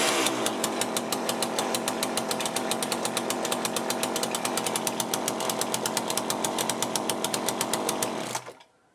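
Small two-stroke chainsaw engine, just brought back to life after a carburettor rebuild, running steadily with an even pulsing beat, then cutting out abruptly near the end. The owner suspects its low-speed mixture is set too lean.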